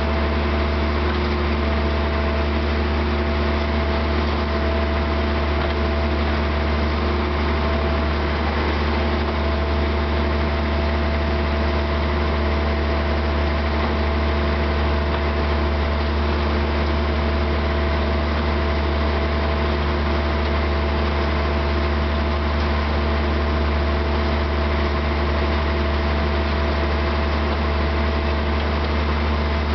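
Narrow-gauge diesel locomotive engine running steadily, a deep even hum that holds the same pitch throughout.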